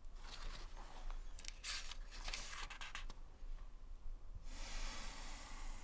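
Paper pages of a book rustling as they are handled and turned: a few short rustles in the first three seconds, then a longer rustle near the end.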